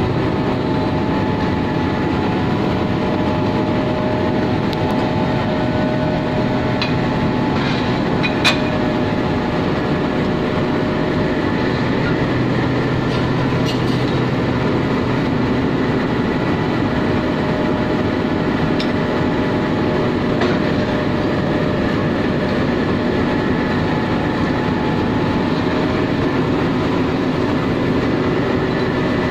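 Diesel locomotive engine running steadily, with a few short metallic clanks, the loudest about eight seconds in.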